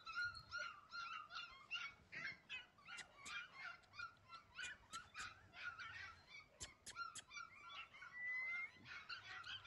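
Beagle puppies yipping and whimpering faintly, many short high-pitched squeaks a second, with one short rising whine near the end.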